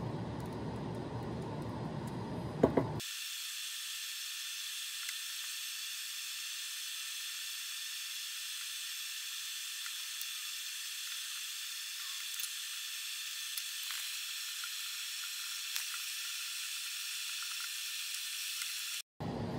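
Aviation snips cutting metal screen mesh, with two sharp snips about two and a half seconds in. After about three seconds the sound changes to a steady high hiss with a few faint ticks.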